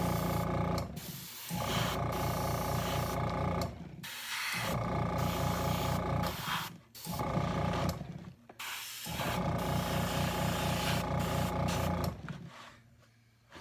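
Airbrush spraying paint in five bursts of one to three seconds, each with the steady hum of its small air compressor running and a hiss of air, stopping sharply between bursts.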